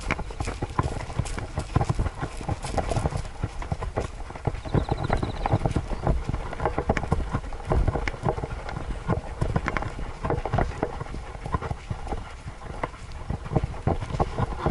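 Dense, irregular knocking, thumping and rubbing from a head-mounted camera being jostled with each stride of a walking Siberian Husky.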